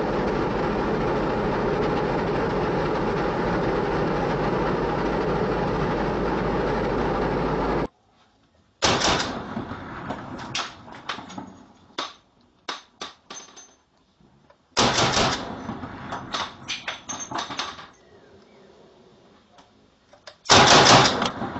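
A tank engine running steadily and loudly, cut off abruptly about eight seconds in. Then assault rifle fire: single shots and short bursts, with a dense run of shots in the middle and the loudest shots near the end.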